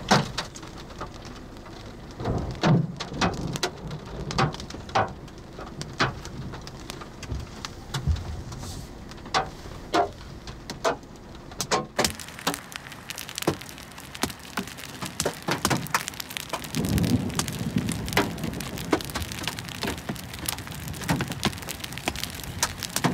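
Hailstones striking a Subaru Crosstrek's roof and windshield in sharp, irregular bangs over a steady hiss of heavy rain, heard from inside the car. The strikes and the hiss grow denser about halfway through.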